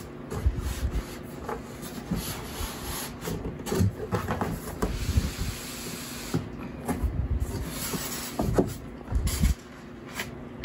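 Cardboard packaging being handled: an iMac's outer carton sliding off the inner box and its flaps being opened, with rubbing and scraping broken by irregular knocks and bumps.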